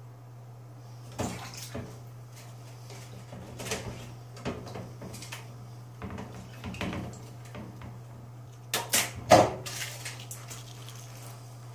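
Hands handling a peeled hard-boiled egg and its broken shell by a tap: short, irregular crackles and wet rubbing sounds, loudest about nine seconds in, over a steady low hum.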